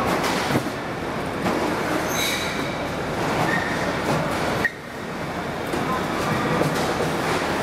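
Electric tow tractors hauling trains of metal flower trolleys: a steady rumble and rattle of wheels and frames, with clicks and short wheel squeals now and then. The noise drops suddenly for a moment about two-thirds of the way through, then builds back up.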